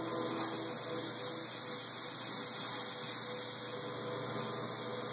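Steady hiss with a faint electrical hum, and no drum strokes.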